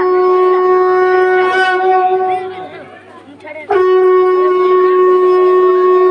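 Conch shell (shankha) blown as a ritual call in long steady blasts on one held note. The first blast fades out about two and a half seconds in, then a second blast starts sharply just under four seconds in and holds.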